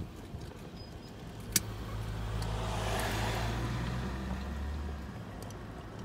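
Road vehicle passing close by, its tyre and engine noise swelling and then fading over a few seconds, with a sharp click about a second and a half in.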